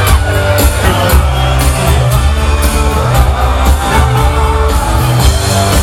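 Loud live band music at a concert, with a steady, heavy bass line.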